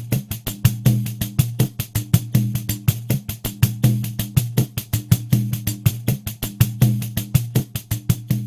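Pandeiro playing a steady groove at 80 BPM, with jingle strokes about five to six a second under a repeating deep open tone from the drum head.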